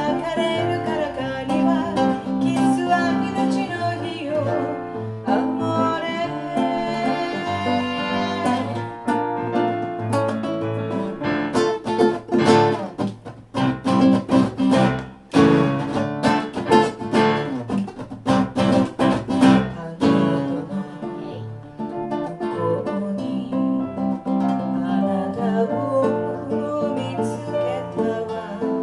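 Live bossa nova played on a nylon-string classical guitar and an electric keyboard, with a singer's voice at the start and end. In the middle the voice drops out and the guitar plays sharp, rhythmic chord strokes.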